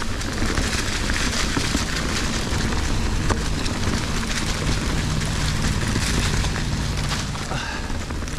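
Fezzari Cascade Peak mountain bike riding over a rocky dirt trail: tyres crunching and the bike rattling with many small irregular knocks, over a steady low wind rumble on the camera microphone.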